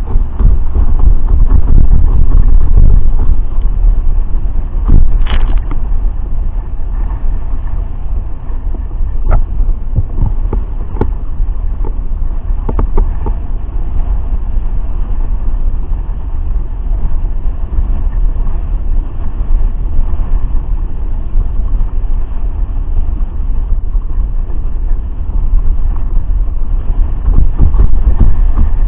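Wind buffeting the microphone in a heavy, low rumble, with water rushing and spraying past a hydrofoil board riding at speed. A few sharp slaps of water cut through, about 5, 9 to 11 and 13 seconds in.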